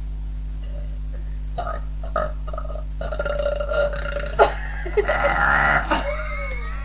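A girl belching on purpose: a long drawn-out burp starting about three seconds in, then a second, louder one about five seconds in.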